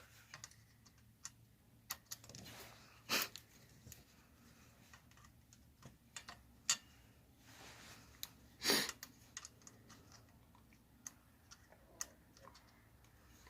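Sparse small clicks and scrapes of hand tools working the valve adjusting screws and locknuts on a Honda 300EX engine, with two brief louder rubbing sounds about three and nine seconds in.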